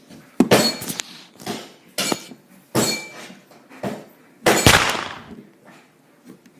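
A series of about six sharp bangs at irregular intervals, with a clinking, glassy ring. The loudest comes about four seconds in and rings out for nearly a second.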